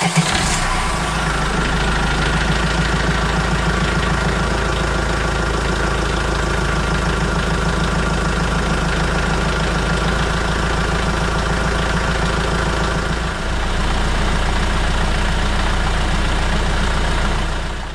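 The 2004 Vauxhall Vivaro's 1.9-litre diesel engine running steadily at idle, with a brief dip in level about 13 seconds in.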